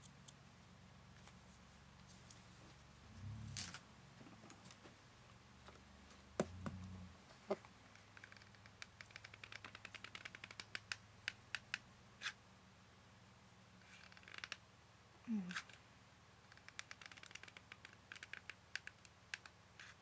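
Faint handling sounds of chipboard craft pieces on a cutting mat: scattered small clicks and taps, a few light knocks, and two quick runs of tiny clicks.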